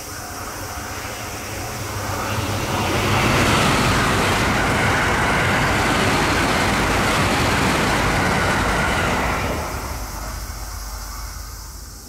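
Electric passenger train passing close by at speed: its rush builds over about three seconds, holds loud and steady for about six, then falls away quickly about ten seconds in.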